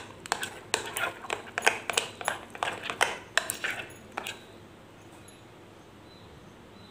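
Metal spoon clinking against a glass mixing bowl while stirring thick cake batter, about three taps a second, stopping about four seconds in.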